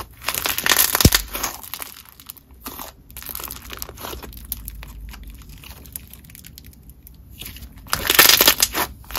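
Play-Doh Crystal Crunch bingsu bead slime being squeezed and kneaded by hand: dense crunching of the beads, loudest in the first second or so and again near the end, softer in between.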